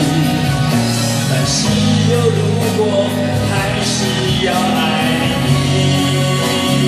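Karaoke backing track of a Mandarin pop ballad playing loud and steady, with guitar, sustained chords and a drum beat. A man sings along into a handheld microphone.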